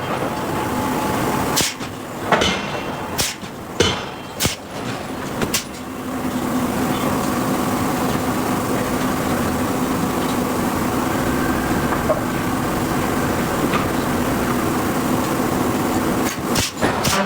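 Hydraulic forging hammer striking hot steel: about six blows at uneven spacing in the first six seconds, then a steady machinery hum with a low tone, and a few more blows near the end.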